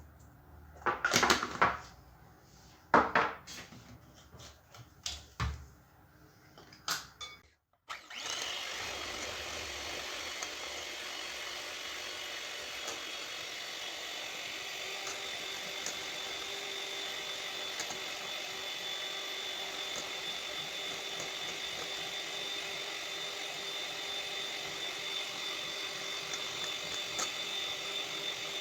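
A few knocks and clicks of bowl and utensil handling, then, about eight seconds in, an electric mixer starts and runs steadily, whipping eggs and sugar until they are thick.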